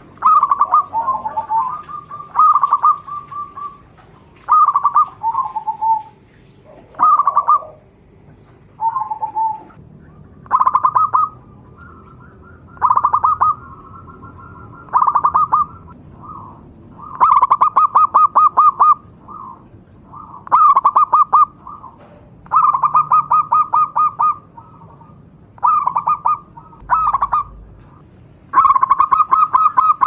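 Zebra dove (perkutut) cooing: repeated short phrases of rapid pulsed notes on much the same pitch, one every one to two seconds, the phrases growing longer in the second half.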